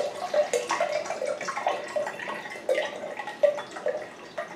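Water dripping and splashing into a cup at the kitchen tap, a quick irregular string of short plinks.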